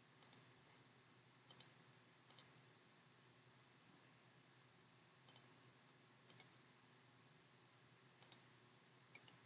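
Computer mouse button clicking: seven short clicks, each a quick double tick of press and release, at uneven intervals over a quiet background.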